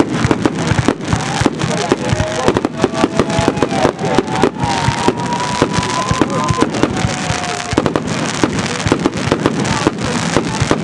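Aerial fireworks display: shells bursting in a rapid, unbroken string of bangs and crackles, many per second.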